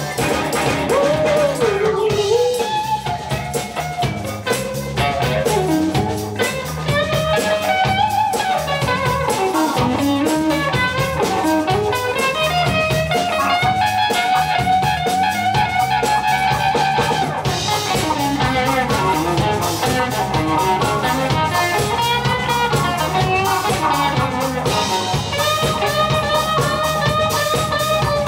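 Live blues band playing: electric guitars, bass, keyboard, saxophone and drum kit over a steady beat, with a gliding lead melody line.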